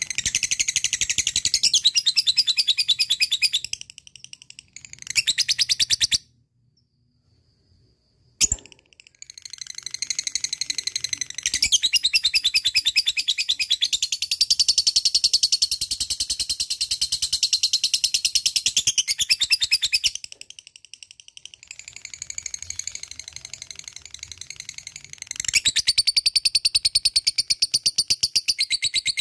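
Lovebird singing its 'ngekek': long runs of very rapid, high-pitched chattering trill, each lasting several seconds with short pauses between. About a fifth of the way in it stops for two seconds, ending with a sharp click, then sings a long unbroken run, goes softer for a few seconds, and comes back loud near the end.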